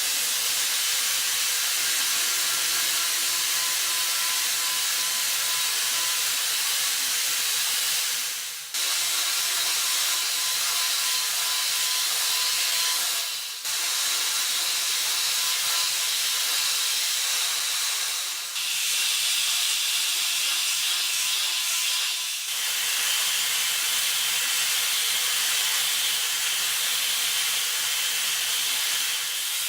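CNC machining centre milling an LED lamp housing with small end mills: a high-speed spindle whine over a steady loud hiss. The sound dips briefly four times, and after the later dips the whine settles at a lower pitch.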